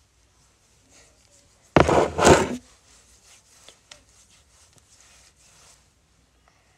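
A loud knock and scrape close to the microphone about two seconds in, something being set down near the phone, most likely the plastic cream jar. Then faint rubbing and a few small clicks as hands rub cream into the face.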